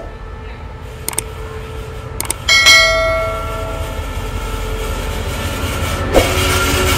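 CRRC diesel-electric locomotive rolling slowly past at close range, its engine and wheels a low rumble that grows louder toward the end. About two and a half seconds in, a single bell-like metallic ring sounds and dies away within about a second.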